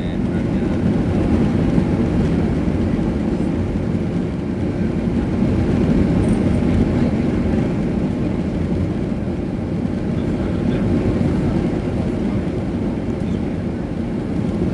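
Airliner cabin noise inside an Airbus A330 at takeoff: jet engines and rushing air make a loud, steady low rumble that swells and eases slightly.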